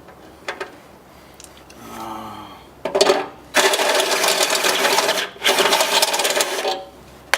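Power drill running in bursts as it enlarges a small pilot hole in the car's sheet metal to take a rivet nut. There is a softer spin-up about two seconds in, then a short loud run and two longer ones with brief pauses between.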